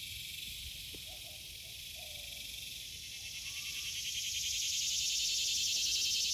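Insect chorus: a dense, high-pitched, rapidly pulsing drone that swells louder about four seconds in, with a few faint short chirps beneath it.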